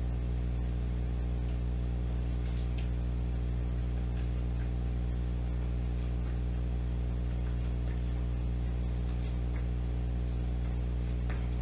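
Steady electrical mains-type hum, a low drone with a stack of overtones, unchanging throughout. A few faint ticks sound over it.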